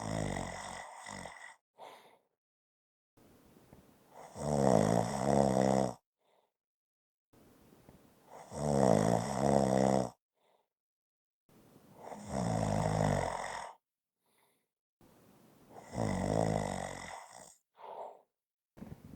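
A person snoring steadily: four long, loud snores about four seconds apart, each lasting about two and a half seconds, with shorter, fainter breaths between them.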